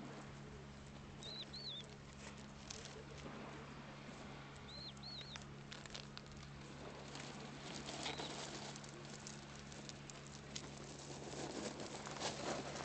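A small bird's quick two-note chirp, heard three times a few seconds apart, over faint scattered clicks and rustling that grow louder near the end.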